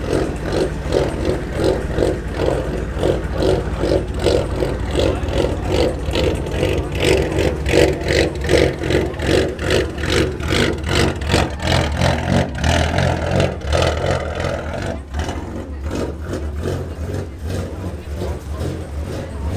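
A car engine running, with people talking nearby.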